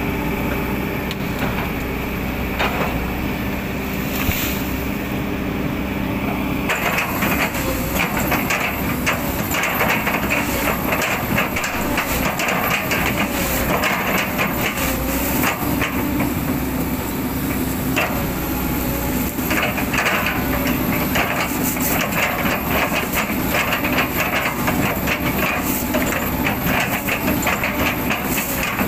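Hydraulic excavator running under load, its engine humming steadily; from about seven seconds in, dense, irregular crackling and knocking as the bucket chops and splinters an old oil palm trunk into chips.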